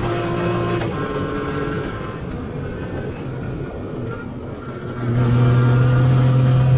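Yamaha YXZ1000R side-by-side's three-cylinder engine running on the track. Its note eases off through the middle and then comes in louder at a steady, higher pitch about five seconds in.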